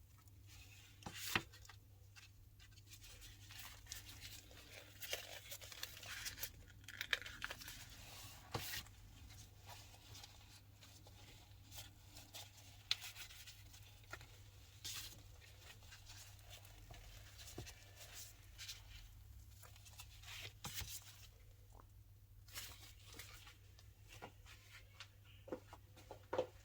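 Silicone coaster mold being flexed and peeled away from cured epoxy resin coasters, giving scattered crackles, clicks and soft tearing sounds over a faint steady low hum.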